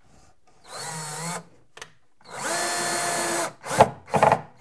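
Cordless drill driving a screw through a metal drawer slide into plywood: a short run about a second in, then a longer steady run, then two quick bursts near the end.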